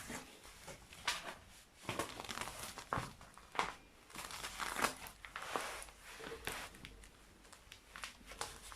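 Packaging crinkling and rustling in irregular bursts as it is handled.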